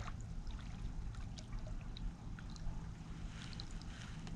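Kayak paddling: paddle strokes in the lake water with scattered drips and small splashes, over a low steady rumble.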